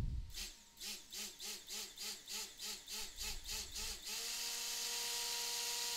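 Stick blender in a bowl of soap oils and lye water, pulsed in short bursts about three times a second, then run steadily from about four seconds in: blending cold process soap batter toward trace.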